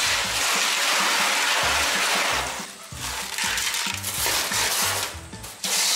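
Tap water running into a pot of Manila clams in a stainless steel sink while a hand rubs and stirs the clams to rinse them; the rush of water breaks off briefly twice. Background music with a steady low beat plays underneath.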